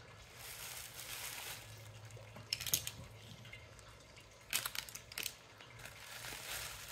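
Bubble wrap rustling and crinkling as it is handled, quiet, with a few short sharper crackles about two and a half seconds in and again around four and a half to five seconds.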